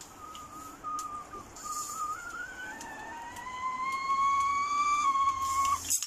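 Ghillie Kettle's spout whistle sounding as the water comes to the boil: a single whistle that wavers, then climbs steadily in pitch and grows louder, joined about halfway through by a second, lower rising tone. It cuts off suddenly near the end with a rush of steam hiss.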